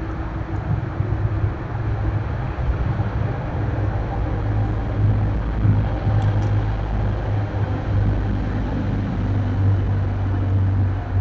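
Steady low rumble of road traffic, without let-up.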